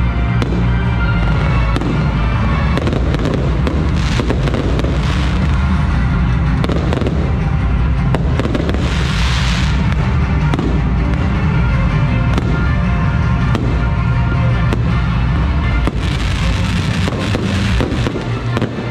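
An electronically fired fireworks display going off continuously, with many sharp bangs and crackles and a burst of hissing about nine seconds in. Loud music with steady bass plays underneath.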